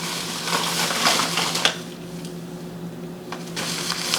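Rolls and boxes of film being handled: rustling with several sharp clicks and taps, quieter for a moment in the middle, over a faint steady hum.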